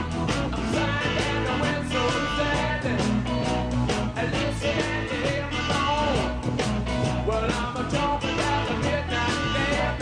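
A rock or blues-rock recording with electric guitar, drums and singing.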